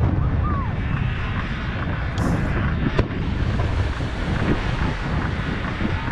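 Aerial firework shells bursting one at a time: a single sharp bang about three seconds in, over a steady low rumble of wind on the microphone.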